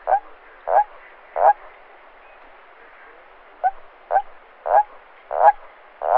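Toad calling in short repeated notes, about one every two-thirds of a second: three notes, a pause of about two seconds, then a run of five, each longer and louder than the last.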